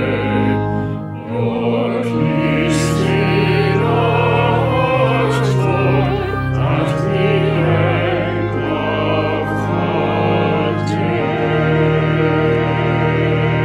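A hymn sung over sustained organ chords, the voices wavering in pitch. There is a short break about a second in.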